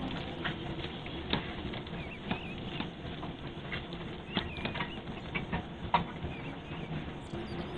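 Thin plastic bag crinkling and crackling in irregular small clicks as fingers squeeze and roll soft silicone inside it, with one sharper crackle about six seconds in.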